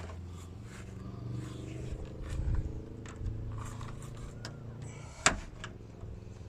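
A vehicle engine running steadily, with scattered small clicks and scrapes and one sharp click about five seconds in.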